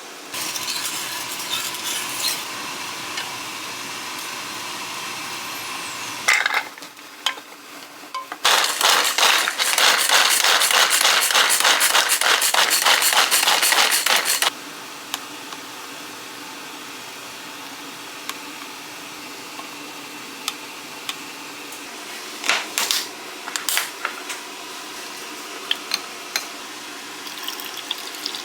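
Kitchen food-preparation sounds: utensils and dishes clinking, then a loud run of rapid, even strokes for several seconds, followed by scattered light taps and clinks.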